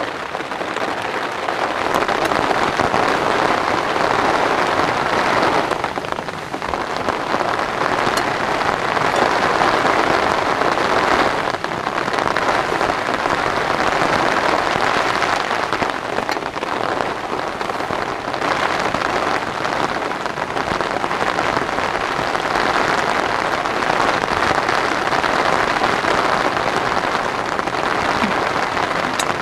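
Heavy rain pelting a tent's fabric in a dense, steady patter, easing briefly about six seconds in.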